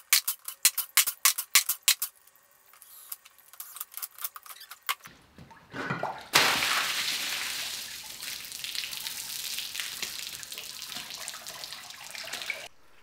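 A Makita cordless impact driver rattles in quick strokes, undoing the end-cap bolts of a water-filled pressure chamber. After a couple of knocks the cap comes free about six seconds in, and water gushes and splashes out of the chamber steadily until the sound cuts off abruptly near the end.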